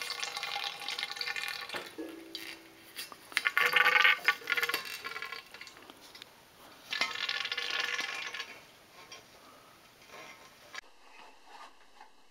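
Beer splashing and gurgling in bursts as it is siphoned from a glass carboy through a tube, loudest about four seconds in, dying away near the end.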